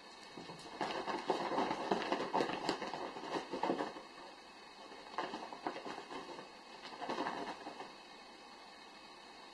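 A cat's paws and claws scrabbling and scratching on a textured fabric sofa cover as it pounces. It comes in three bursts of quick rustling clicks: a long one starting about a second in, a shorter one around five seconds, and a brief one around seven seconds.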